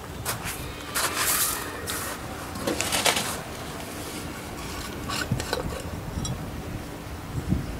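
Brass alcohol-stove burner being handled: a series of short metal scrapes and clinks as its lid is worked loose and lifted off, the loudest about a second in and around three seconds in.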